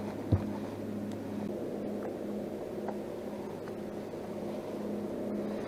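Steady mechanical hum of a small electric motor, with a soft knock about half a second in and a few faint ticks.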